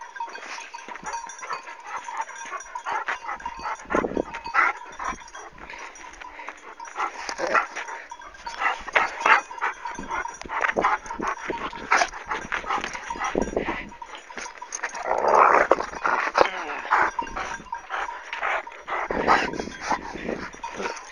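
Kangal shepherd dog making dog noises as it lunges at and tussles with a person, over scuffling and many short knocks of handling.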